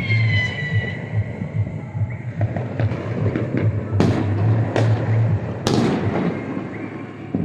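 New Year's fireworks going off: a high whistle falling in pitch at the start, then steady popping and crackle, with three sharp bangs about four, five and six seconds in.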